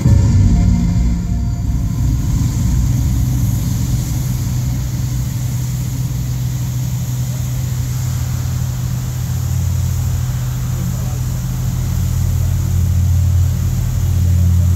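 Steady low rumble with an even hiss of water spray from the high-pressure jets of a large river fountain show.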